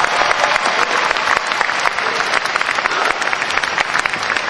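Audience applauding: many hands clapping together in a dense, steady clatter.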